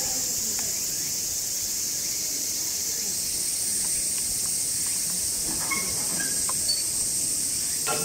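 Steady high-pitched drone of summer insects, with a second, higher drone joining about three seconds in.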